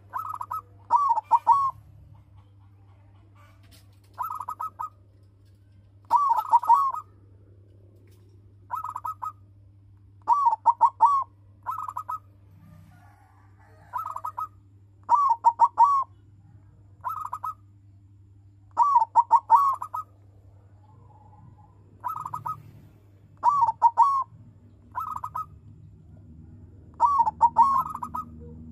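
Zebra dove (perkutut), a captive-bred silver colour form, cooing its song. Short clipped coo phrases repeat every two to three seconds, some a single note and others a quick run of three or four notes.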